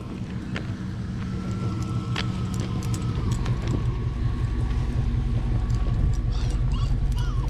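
A motor vehicle on the road approaching, its engine rumble growing steadily louder, with a few faint clicks over it.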